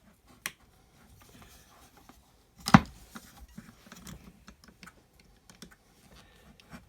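Small screwdriver clicking and scraping as it works a tight grub screw in an angle grinder's cable terminal block, a scatter of light clicks with one sharp louder click nearly three seconds in.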